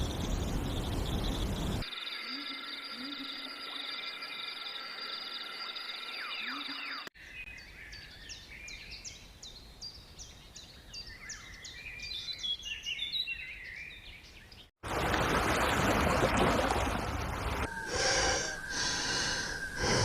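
Outdoor nature sounds cut together from several recordings: a steady rushing noise, then steady high-pitched tones, then a run of many quick high chirps from birds, then loud rushing noise again.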